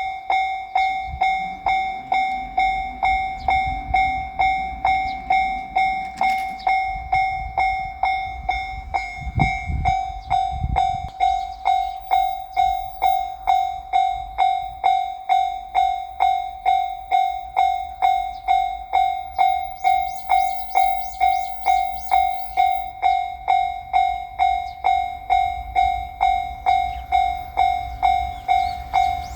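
Japanese level-crossing warning bell ringing its steady two-tone 'kan-kan', a little under two strikes a second, over a low rumble that swells about ten seconds in.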